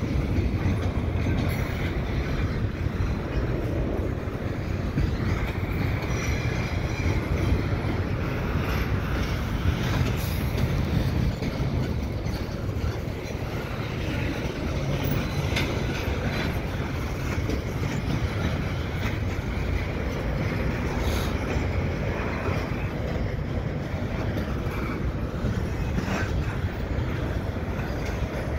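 Freight cars rolling through a rail yard during a switching move: a steady low rumble with occasional knocks from the wheels and couplers.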